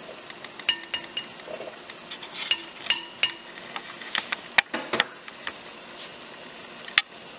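Stainless steel pot and kitchenware clinking: a series of sharp knocks, several with short metallic rings, over a steady hiss.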